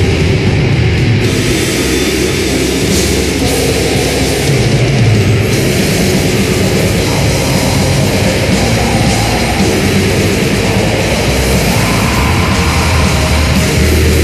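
Extreme metal music playing loud and dense without a break, a full band wall of sound.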